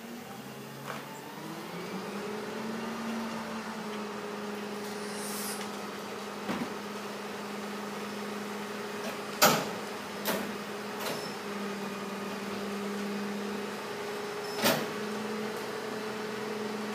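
Rear-loading garbage truck's engine speeding up over the first couple of seconds and then holding a steady drone, with sharp bangs of trash cans being knocked against the hopper: a loud one about halfway through, two or three smaller ones right after, and another loud bang near the end.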